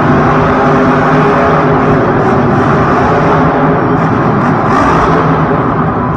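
Grave Digger monster truck's supercharged V8 engine running loudly at a fairly steady pitch.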